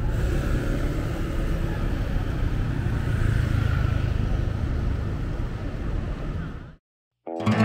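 Street traffic noise: a steady low rumble of cars and motorbikes passing on a city boulevard. It cuts off suddenly near the end, and music starts just after.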